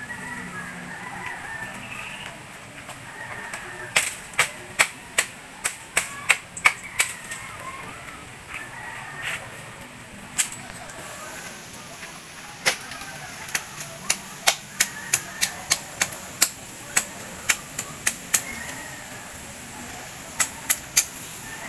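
A machete chopping bamboo: runs of sharp strikes, two or three a second, with pauses between the runs.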